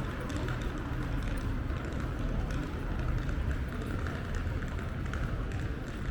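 City street ambience: a steady low rumble with a faint background hum of the street and scattered light footsteps.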